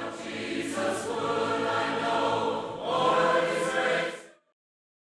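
A choir singing held chords, with no instruments to be seen. It moves to a new chord about three seconds in and cuts off abruptly a little after four seconds.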